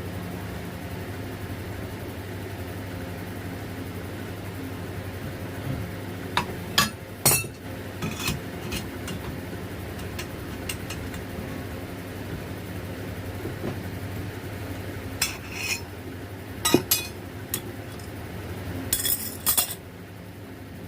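Metal tools and parts clinking and knocking against each other in a few short clusters, over a steady low hum.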